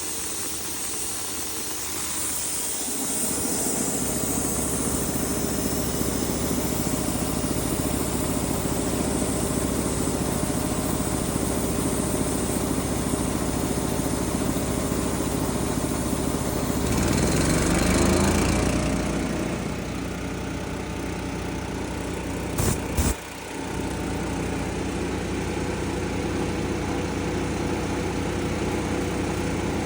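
An engine running steadily. Its speed rises and falls briefly about halfway through, and two sharp clicks follow a few seconds later.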